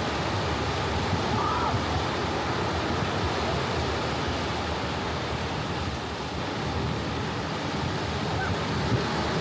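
Soft ocean surf washing onto a beach, a steady rushing wash of water. Two faint, brief pitched sounds come through it, about a second and a half in and near the end.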